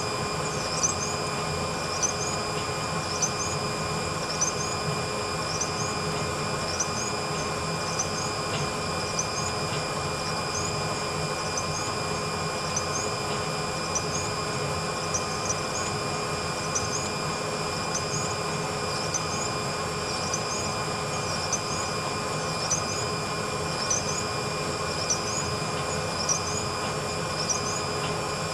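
Horizontal drag finishing machine running as it polishes rifle barrels: a steady mechanical hum with a constant high whine, and a short high rising chirp about every second and a quarter.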